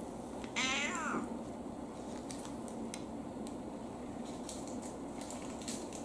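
An elderly brown tabby cat meows once, about half a second in: a short meow that rises in pitch at its end. A few faint clicks follow.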